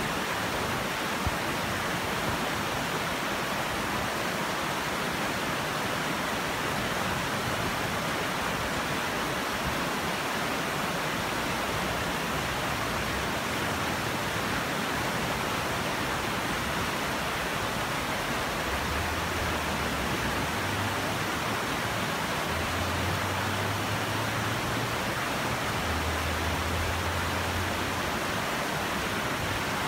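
Rushing water of a shallow rocky river running over stones and small rapids, a steady rush. A faint low hum comes and goes in the second half.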